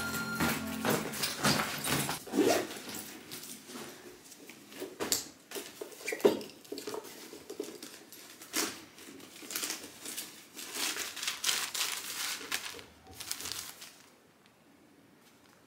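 Handling noise of bags and packaging: a fabric handbag rustling and plastic-wrapped packets crinkling as items are taken out, with scattered clicks and knocks. It goes quiet near the end.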